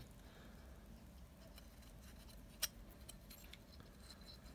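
Near silence with faint handling of a metal EGR valve as its gears are turned by hand, and one sharp click about two and a half seconds in.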